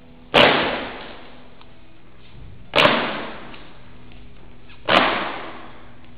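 Kung fu fan being snapped open sharply, three loud cracks about two seconds apart, each echoing briefly in the hall.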